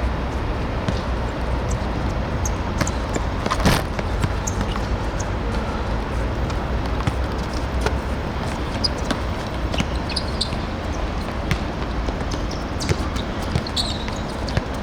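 Open-air ambience of a seven-a-side football match: a steady low rumble with scattered sharp thuds of the ball being kicked and bouncing, the loudest about four seconds in.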